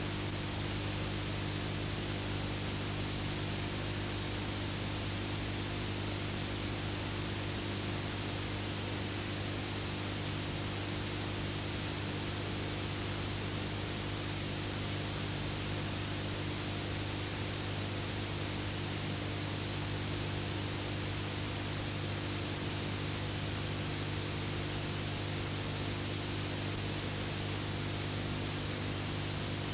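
Steady hiss with a low, unchanging electrical hum underneath: the noise floor of an old film transfer that has no soundtrack.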